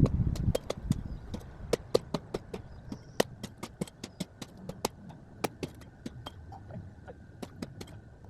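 Axe striking tree limbs, a rapid irregular run of sharp wooden knocks and cracks, several a second, with a heavier thud at the start, as small branches are knocked and broken off.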